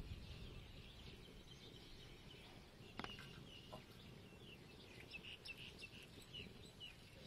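Near silence: faint outdoor quiet with small bird chirps in the distance from about halfway through, and a single light click about three seconds in.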